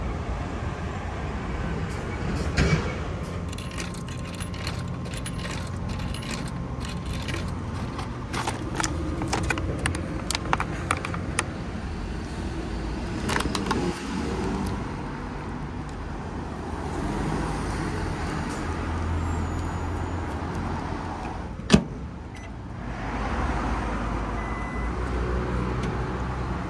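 Crinkling and crackling of a plastic food bag being handled and opened, over a steady low background hum, with one sharp click later on.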